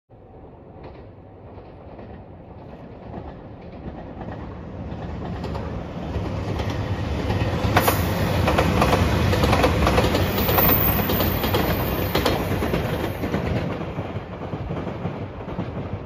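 JR Shikoku 2700 series diesel limited express train approaching, passing and running away. It builds from faint to loudest about halfway through, with wheels clacking over rail joints as it goes by, then fades.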